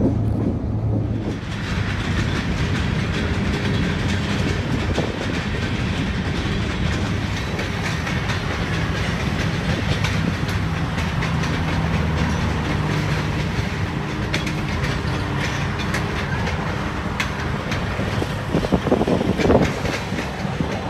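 Freight train cars rolling past, their steel wheels clicking and clacking over the rail joints in a steady rumble, with a louder burst of clatter near the end. About a second in, a low diesel locomotive drone gives way to the rolling noise of the cars.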